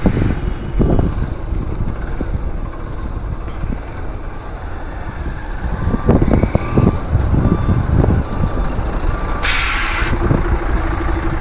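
Road traffic with trucks and a steady low rumble. About nine and a half seconds in, a short hiss of truck air brakes. A faint repeated beeping runs through the second half.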